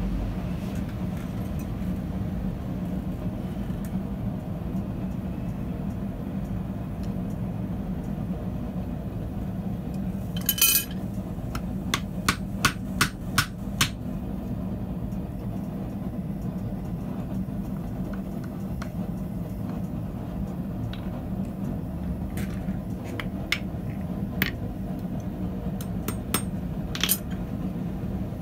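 Hand hammer striking steel on an anvil, driving a broken drill bit through a red-hot hook to punch a small nail hole: a quick rattle of taps about ten seconds in, then four single strikes about half a second apart, and a few more scattered strikes near the end. A steady low hum runs underneath.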